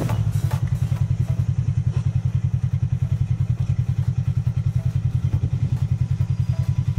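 Polaris RZR side-by-side's engine running steadily at low revs, a low even pulsing at about ten beats a second with no revving.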